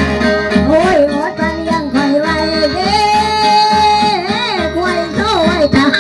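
Northeast Thai folk music for a ritual dance: a voice sings a sliding, wavering melody over the steady reed drone of a khaen, with a low beat underneath.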